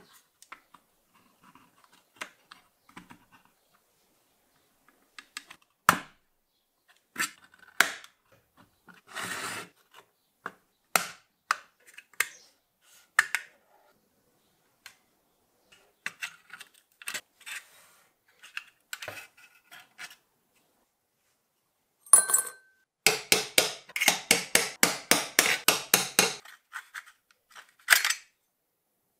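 Small pliers and the thin sheet metal of an old toy pistol being taken apart: scattered metallic clicks and short scrapes as the fastening tabs are pried. Near the end comes a rapid run of clicks, several a second for about three seconds, then one last click.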